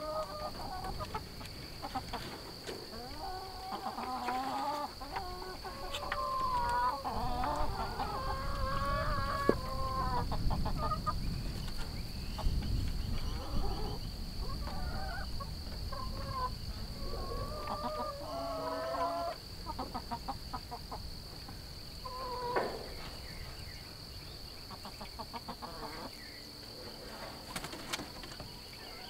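Chickens clucking and calling in many short, varied calls, thickest in the first twenty seconds and thinning out after. A steady high whine runs underneath throughout.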